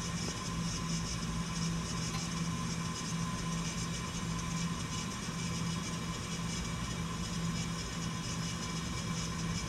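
Steady mechanical hum from an Electrovert Electra 500F wave solder machine as its conveyor rails are driven slowly outward to widen, with a low steady tone and a fainter higher whine that hold unchanged throughout.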